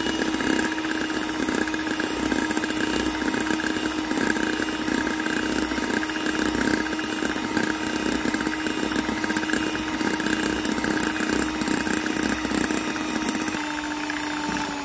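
Electric hand mixer running at a steady high speed, its motor giving a constant whine as the beaters whip egg whites toward stiff peaks. Right at the end it is switched off and the whine drops in pitch as the motor winds down.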